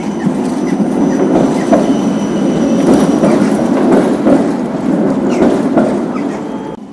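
Helsinki Transtech Artic tram passing close by on street track, its steel wheels running on the rails with a loud, steady rolling noise. A few faint, brief wheel squeals sound through it, and the noise eases off in the last second or so as the tram moves away.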